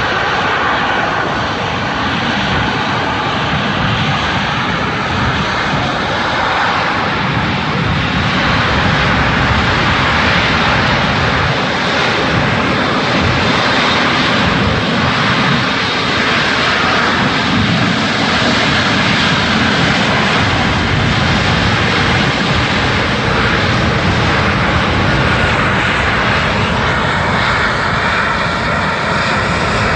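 Aircraft engines running loud and steady, a dense rushing roar of a large airplane.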